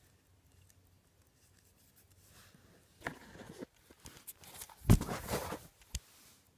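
Handling noise from a phone being moved by hand: faint room tone, then rustling and rubbing close to the microphone, loudest about five seconds in, and a short sharp knock about six seconds in.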